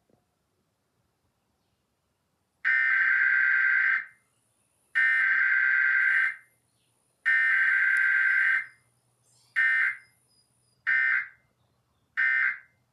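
Emergency Alert System digital data bursts, the harsh buzzing SAME code tones: three long bursts about a second apart, then three short ones.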